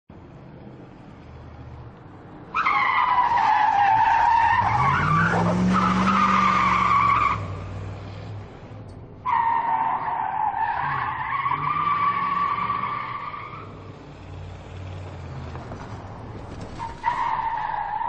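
Muscle car driving and skidding, its tyres squealing three times over a low engine note. The first squeal comes about two and a half seconds in and lasts about five seconds, with the engine revving up and back down beneath it. A second runs from about nine to thirteen seconds, and a third starts near the end.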